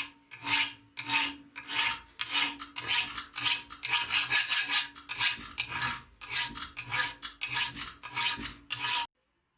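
Hand file scraping across a steel hatchet head in steady back-and-forth strokes, about two a second, with a faint metallic ring. The strokes stop abruptly near the end.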